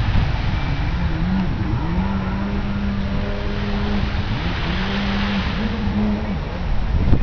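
A motor engine running at a steady pitch that rises and drops a few times, as with throttle changes, over a steady rushing noise.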